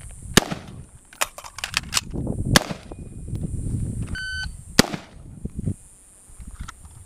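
Gunshots: a quick string of shots in the first three seconds, then the shot timer's beep about four seconds in, followed by one more shot.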